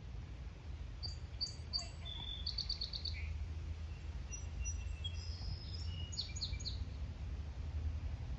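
Small birds chirping and singing in short phrases of quick, high repeated notes, from about a second in until near the end, over a steady low rumble.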